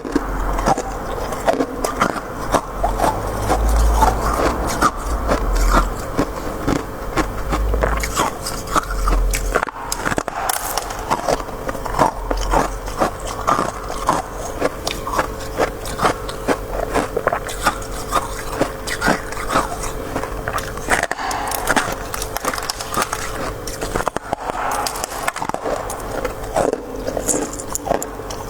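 Close-miked biting and chewing of freezer frost, like soft white shaved ice, heard as a continuous run of crisp crunches several times a second.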